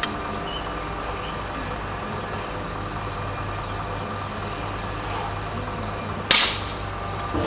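A single shot from a 5.5 mm Vulcan 3 PCP air rifle, tuned to over 110 foot-pounds, about six seconds in: one sharp crack with a short ring after it, over a steady low hum.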